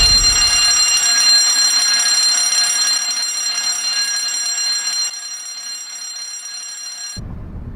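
A steady, high-pitched alarm tone made of several pitches at once, dropping in level about three seconds in and again about five seconds in, then cutting off suddenly near the end.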